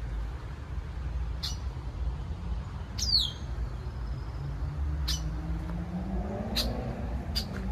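Songbirds chirping: short, high, separate calls about every second or so, the loudest a quick downward-sweeping note about three seconds in. A steady low rumble runs underneath, with a low hum that rises and falls in the second half.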